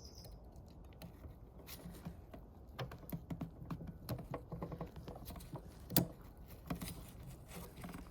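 Small plastic clicks and taps from handling a rear light cluster's bulb holder while plugging a new push-in side light bulb into it, scattered and irregular, with one louder click about six seconds in.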